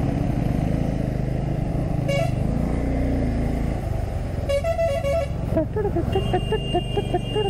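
Motorcycle running along a hill road, its engine and the wind making a steady low rumble. A vehicle horn sounds once briefly about two seconds in, then as a quick series of short beeps a couple of seconds later while a vehicle is being overtaken.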